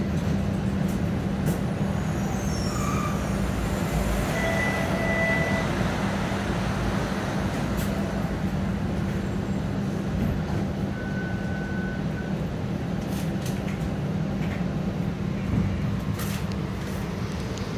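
TTC streetcar running along the track, heard on board: a steady rumble and hum, with a few brief faint high tones and some light clicks near the end.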